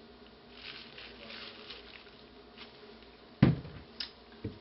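Handling noise of a soap loaf on a wooden soap cutter with a plastic board: soft rustling from gloved hands, then a sharp knock about three and a half seconds in, followed by two lighter clicks.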